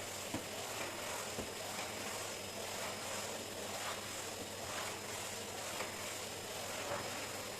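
Light scattered knocks and handling sounds over a steady hiss.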